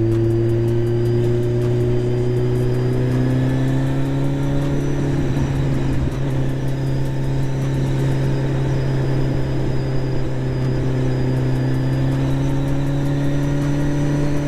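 Kawasaki Z1000's inline-four engine running under way through an aftermarket SC Project exhaust that is still missing its connecting pipe. The engine note climbs slowly, dips briefly about five seconds in, then climbs again.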